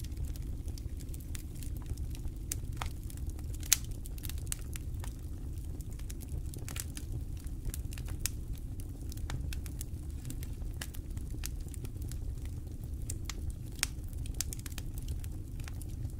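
Campfire of burning wood crackling, with irregular sharp pops over a low steady rumble. One louder pop comes about four seconds in, and another near the end.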